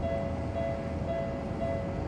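Japanese level-crossing warning bell ringing, an electronic ding repeating about twice a second over a steady tone, with a low rumble beneath.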